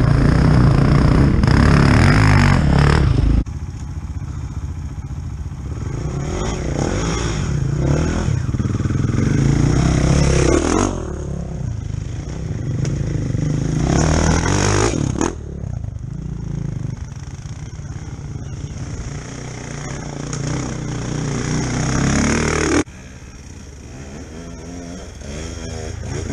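Enduro dirt bike engines: a bike running close by cuts off abruptly about three seconds in. Then other enduro bikes approach one by one, their engines revving up and down as they ride past.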